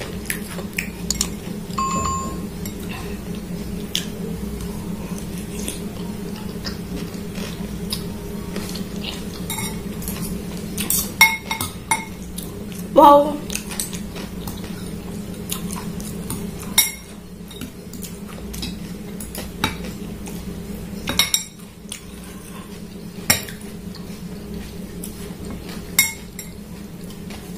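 Metal fork and spoon clinking and scraping against a glass bowl of noodles: scattered irregular clicks, a few of them ringing briefly. A steady low hum runs underneath.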